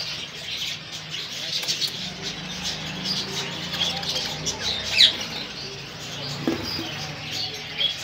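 Budgerigars chirping and chattering in a cage: many short, high chirps, with one loud downward-sliding chirp about five seconds in, over a steady low hum.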